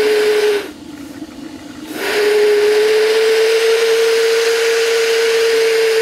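Homemade steam whistle built from an empty propane cylinder, blowing one steady tone over a rush of steam hiss. The whistle drops out about half a second in and sounds again about a second and a half later.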